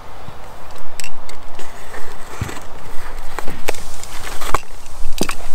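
Small cardboard box being torn open by hand: irregular sharp snaps, crackles and scrapes of cardboard and packaging.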